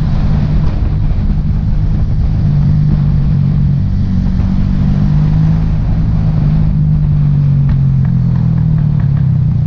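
Small motorbike engine running steadily while riding in town traffic, over a constant low rumble. The engine note sags a little in pitch about two-thirds of the way through.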